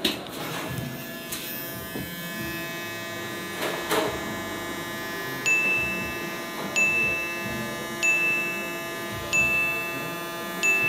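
A countdown sound effect: a short high beep about every 1.3 seconds, five in all from about halfway in, over ringing, chime-like music with a few struck notes earlier on.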